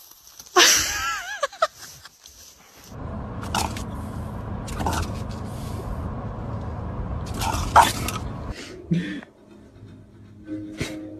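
A brief wavering high cry near the start, then about six seconds of steady road noise inside a moving car's cabin, broken by a few short high squeaks.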